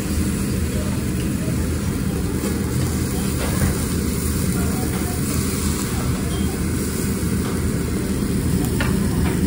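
Steady low rumble of restaurant room noise, with no distinct events.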